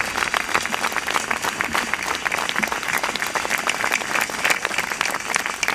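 Crowd applauding: many people clapping steadily.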